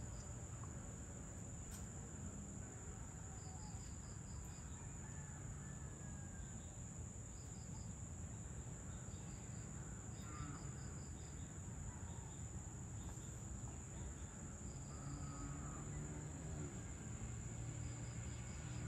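Dusk insect chorus: a steady high-pitched drone of crickets or similar insects, with short trains of about five quick chirps repeating every few seconds. A low steady hum and a few faint short calls sit underneath.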